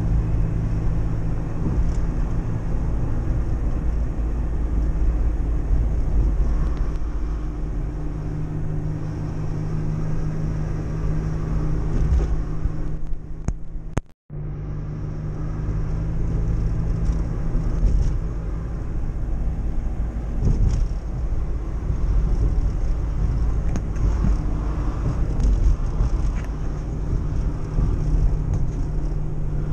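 A car's engine and tyre noise heard from inside the cabin while driving, a steady low hum. The sound drops out for a moment about halfway through.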